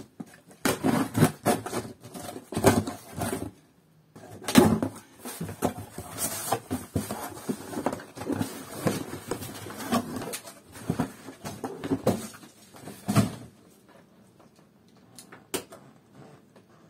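Cardboard shipping box being opened and unpacked by hand: the tape slit, the flaps pulled back, and cardboard scraping and rustling in irregular bursts as the inner shoe box is lifted out. The handling dies down near the end, leaving a few light clicks.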